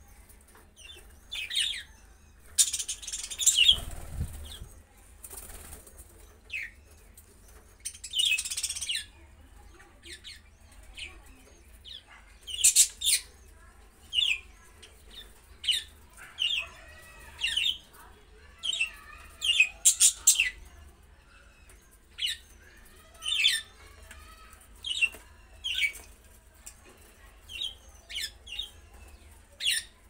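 Caged budgerigars chirping: short, high, sharp calls come every second or so throughout. There are a couple of longer rustling bursts of wing-flapping in the first ten seconds.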